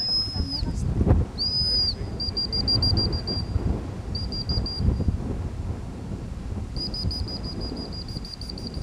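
Gundog handler's whistle: two long blasts, then runs of rapid short pips, the stop and recall-type signals used to direct a retriever. Wind buffets the microphone throughout.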